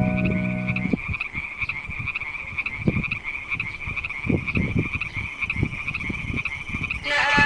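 Chorus of frogs calling, a steady, rapid pulsing trill. A piano tune's last notes die away about a second in, and music comes back near the end.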